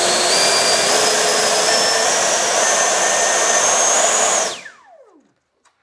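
Electric ducted fan of an FMS Avanti RC jet running at high throttle, its whine climbing slowly in pitch as it speeds up. About four and a half seconds in the throttle is cut and the fan spools down with a quickly falling whine.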